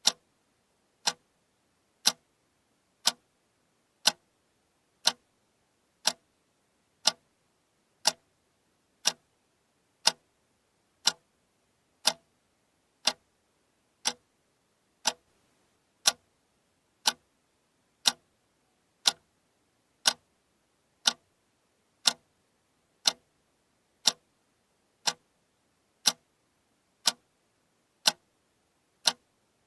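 Alarm clock ticking steadily, one sharp tick every second.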